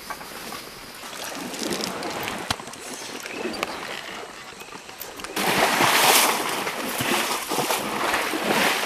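An elephant splashing in shallow muddy water. Low, uneven splashing and rustling at first, then a much louder rush of splashing for about three seconds from about five seconds in.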